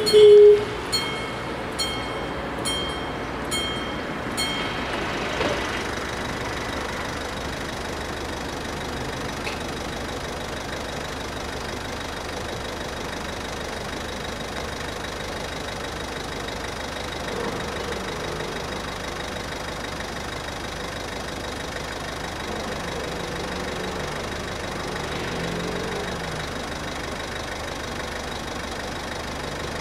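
Level-crossing bells ringing in a steady beat of about one and a half strikes a second, stopping about four seconds in as the barriers finish coming down. A short loud tone sounds right at the start. After that only a steady hum of engines and waiting traffic remains.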